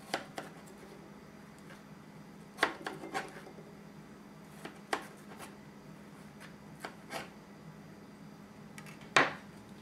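Kitchen knife trimming the seeds and pith out of red bell pepper rings on a plastic cutting board: scattered sharp taps and clicks of the blade against the board, the loudest a little under three seconds in and near the end.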